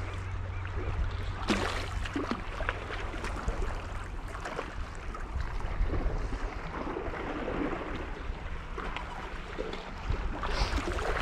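Sea water lapping against shore rocks, with wind rumbling on the microphone and a few brief clicks.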